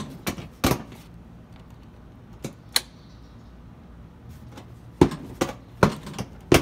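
A scattering of sharp mechanical clicks and knocks: three in quick succession at the start, two around the middle and five near the end, from handling the scooter's key-operated seat latch.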